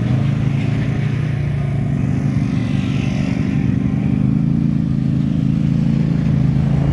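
Off-road vehicle engine running at a steady pitch.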